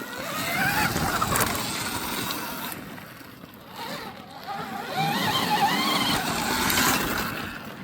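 Small motorcycle engine revving up and down on a dirt flat track, in two stretches of throttle with a let-off between them.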